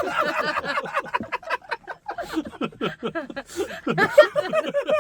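Several people laughing and chuckling together.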